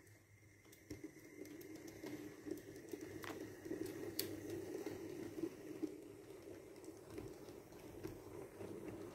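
Model railway train of two Bulleid Pacific locomotives and coaches running along the track: a steady whirring rumble of motors and wheels on the rails that grows louder from about a second in as the train comes past, with a few sharp clicks.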